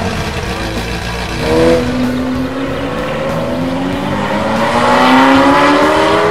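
Sports car engine revving briefly, then accelerating away with its pitch climbing steadily for several seconds.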